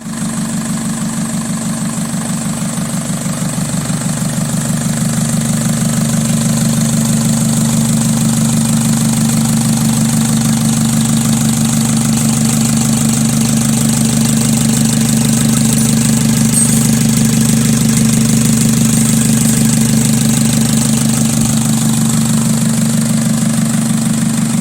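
Mercedes Sprinter 2.2 CDI OM611 four-cylinder common-rail diesel engine idling steadily, with an even rhythmic beat that grows slightly louder over the first few seconds.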